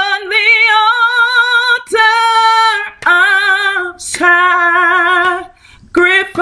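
A woman singing a hymn solo and unaccompanied: slow, long-held notes with a wide vibrato, broken by short gaps between words and a breath pause near the end.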